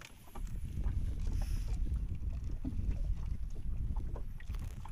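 Steady low rumble of wind on the microphone in a small open fishing boat, with light knocks and clicks scattered through it.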